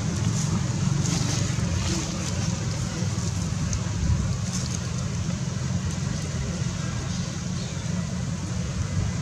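Steady low rumble with an even hiss above it and a few faint ticks, like wind on the microphone or distant engine noise.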